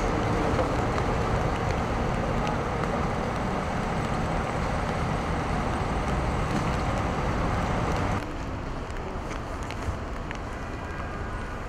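Road traffic on rain-wet pavement: cars and SUVs driving through an intersection, a steady wash of engine and tyre noise. About eight seconds in it drops to a quieter, steady expressway traffic noise.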